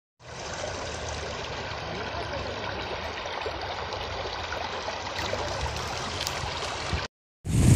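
Shallow stream running over stones and pebbles: a steady rush and trickle of water. It cuts off abruptly shortly before the end.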